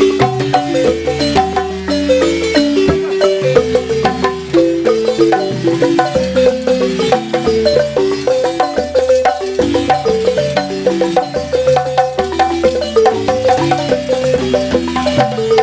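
Balafon, a large wooden-keyed West African xylophone with gourd resonators, played in fast, continuous melodic runs of struck notes.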